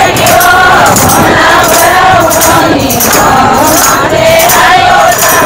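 A group of women singing a Marwari devotional song to Krishna (bhajan) together, with steady rhythmic hand-clapping keeping the beat.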